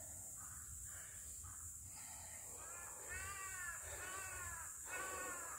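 Crow cawing: a run of drawn-out caws, three clear ones in the second half, each under a second long.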